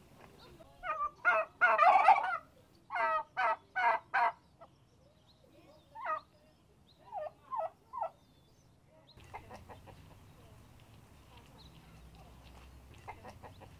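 Domestic turkeys gobbling. A loud, warbling gobble comes about a second in, then a quick run of four shorter gobbles, then a few fainter calls a couple of seconds later.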